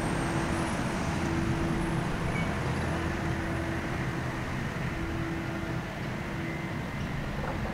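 Steady outdoor background noise: a low, even rumble with a faint hum that comes and goes.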